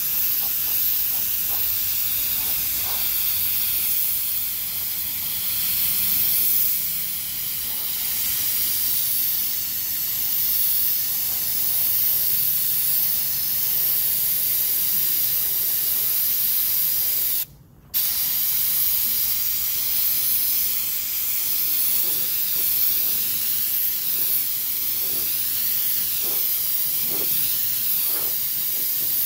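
Compressed-air paint spray gun hissing steadily as primer is sprayed onto body panels. The hiss wavers slightly and breaks off briefly about 17 seconds in before carrying on.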